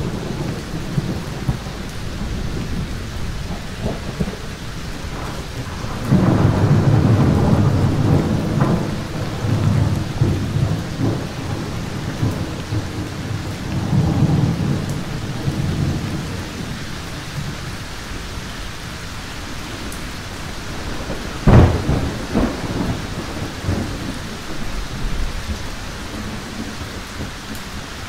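Steady heavy rain with thunder: a long, loud rumble begins about six seconds in, another swells up around the middle, and a sharp crack of thunder comes about three-quarters of the way through.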